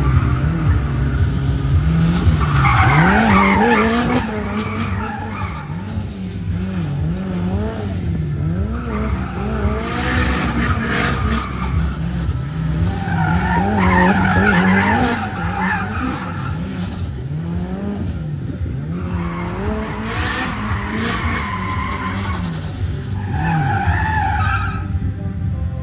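Car driven hard through a gymkhana course: the engine revs rise and fall again and again between short lifts, with tyres squealing in about five bursts as it slides through the turns.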